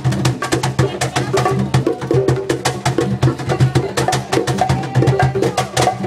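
A group of cajones (wooden box drums) played by hand together: a fast, steady pattern of sharp slaps over deep bass tones.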